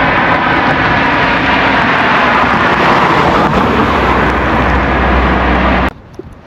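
Loud, steady rushing noise with a low rumble underneath, cutting off abruptly about six seconds in.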